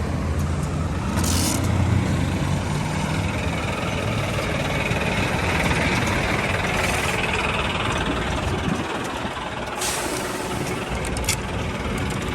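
Road vehicle noise: an engine running low and steady for the first few seconds, then a steady hiss, with a few sharp clicks.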